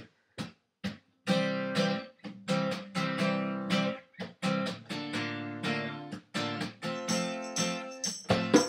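Two acoustic guitars open a country song, and a hand drum keeps time. A few short separate strokes come first. About a second in, steady rhythmic chord strumming begins.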